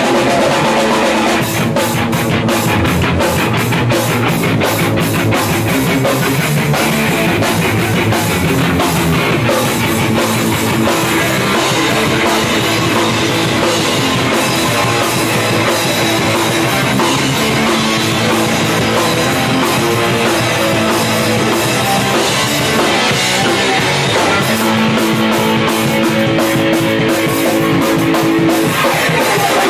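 Hardcore punk band playing live and loud: distorted electric guitar, bass and a drum kit. Runs of rapid drum and cymbal hits come thick early on and again near the end.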